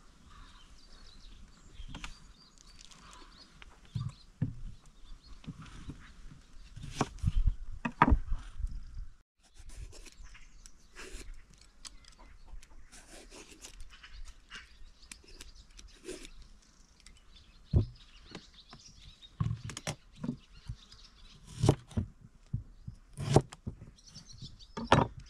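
Vegetable preparation over a wooden chopping block: hands and a knife working on peppers, then the scrape of a swivel peeler along a vegetable and sharp knocks of the knife on the board. Birds chirp faintly in the background.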